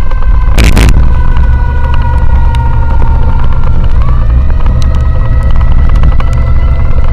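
Ambulance siren sounding as a held tone that sags slowly and steps up in pitch about four seconds in, over the heavy low rumble of the moving motorcycle. A short noisy burst comes just under a second in.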